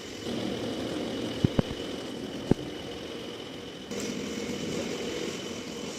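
An engine running steadily at idle, with a thin high whine over it and three sharp knocks, two close together about a second and a half in and one a second later.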